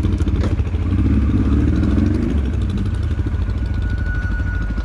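Motorcycle engine idling steadily, a low, evenly pulsing rumble.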